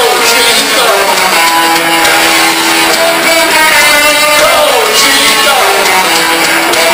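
A live band playing loud, recorded from the audience, with electric guitar to the fore over bass and drums and a few notes sliding downward in pitch.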